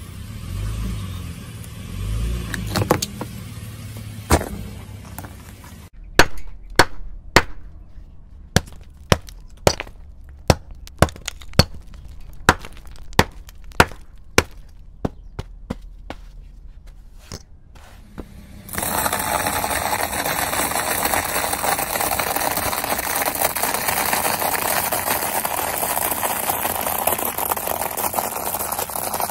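A car tyre rolls slowly onto a block of frozen wet floral foam with a low rumble, and the block cracks sharply twice. Then the frozen foam pieces are struck about fifteen times, each a sharp crack like breaking ice, at roughly one a second. About two-thirds of the way through, a tyre rolling over dry egg noodles sets off a steady dense crunching that runs to the end.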